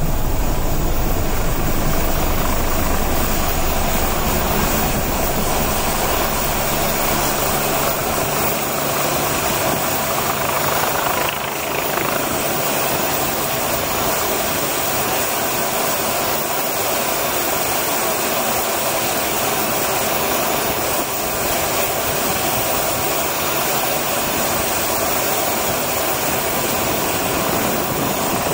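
Helicopter turbine and rotor noise. At first it is heard from inside a cockpit, with heavy low rumble. About eight seconds in it gives way to an Agusta Westland AW109SP twin-turbine helicopter hovering low and landing, its turbines and rotor running steadily.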